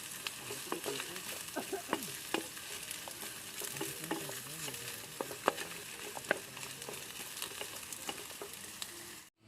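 Food sizzling as it fries in a pan, with a utensil stirring and clicking against the pan every so often. The sound cuts off suddenly near the end.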